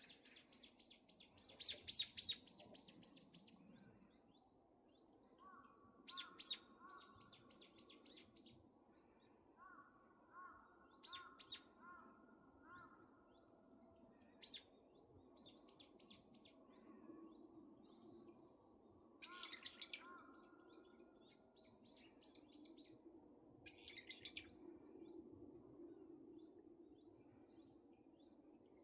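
Wild mountain songbirds singing: high, rapid trills of quickly repeated notes, each lasting a second or two, come every few seconds, with shorter, lower notes in between.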